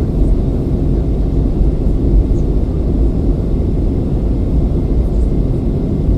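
Steady low rumble inside a passenger airliner's cabin on approach: engine and airflow noise with no distinct events.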